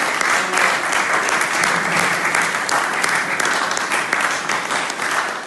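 Small audience applauding, a steady patter of many hands clapping.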